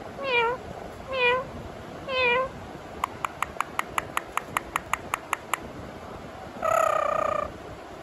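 Indian ringneck parrot mimicking a cat's meow: three short meows in the first two and a half seconds, then a quick run of short clicking chirps, about five a second, and one longer held call near the end.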